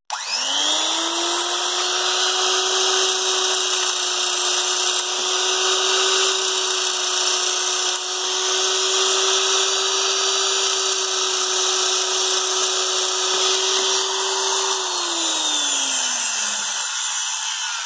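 A 1968 Japanese 100 V electric sheet-metal shear test-run in the hand with nothing to cut. Its motor spins up at once to a steady hum and runs for about fifteen seconds. It is then switched off and winds down with a falling pitch.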